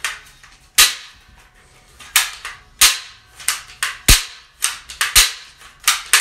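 Toy cap gun fired repeatedly: about ten sharp cracks at uneven intervals, coming faster in the second half.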